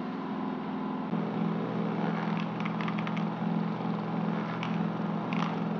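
Steady machine hum that grows louder about a second in, with a few faint clicks.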